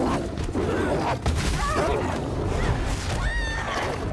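Film fight sound effects: repeated heavy crashes and smashing impacts as giant wolves attack, with animal snarls and a short high cry about three seconds in.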